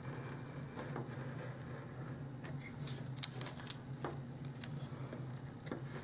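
Utility knife blade drawn along a ruler's edge, scoring through a thin plastic sheet: faint scraping with a few small sharp ticks.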